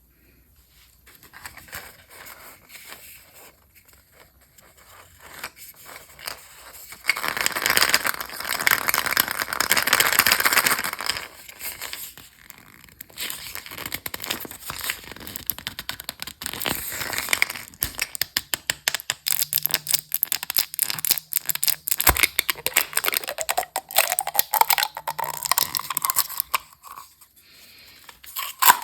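Candy wrappers being torn open and crinkled: a dense run of crackling and tearing, loudest from about 7 to 11 seconds in, with many sharp clicks, then a faint rising tone in the last few seconds.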